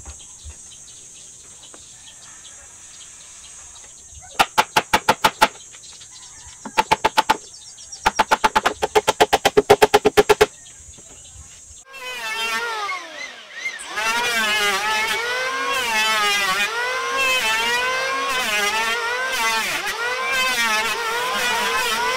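Two-stroke chainsaw sputtering in three short bursts of rapid pops, then catching about 12 seconds in and running, revving up and down over and over.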